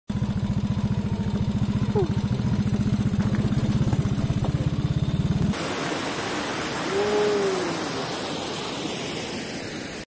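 An engine idles with a fast, even pulse and cuts off suddenly about halfway through. A small waterfall follows, its water rushing steadily down the rocks, with a brief rising-and-falling tone near the middle.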